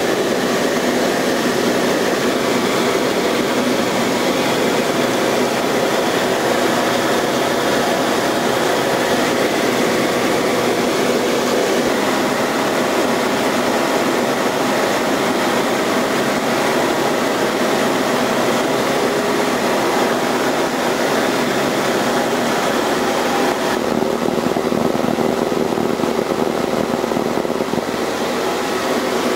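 Steady drone of a light propeller aircraft's piston engine and propeller, heard from inside the cabin in flight.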